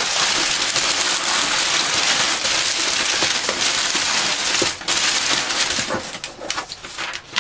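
Crumpled brown kraft packing paper rustling and crackling as it is pulled by hand out of a cardboard shipping box. The rustle is continuous for the first four and a half seconds or so, then breaks into scattered crackles.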